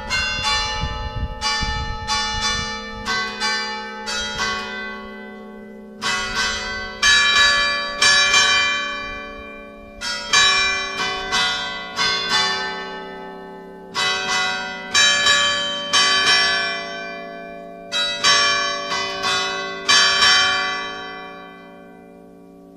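A five-bell church ring in G, with bells cast in 1756, 1834 and 2017, rung as the call to a festive Mass. Quick strokes at first, then four rounds of about five strokes each, roughly every four seconds, over a steady hum. The last strokes die away near the end.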